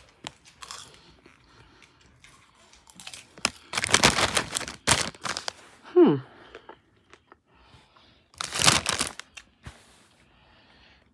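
Foil snack bag of popcorn crinkling in bursts as it is handled, with popcorn crunched while chewing. A short voice sound falling in pitch about six seconds in.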